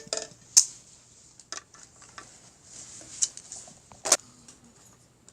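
Toy dishes and cutlery tapping and clicking as the dolls' breakfast is eaten: scattered light clicks, with sharper knocks about half a second in and about four seconds in.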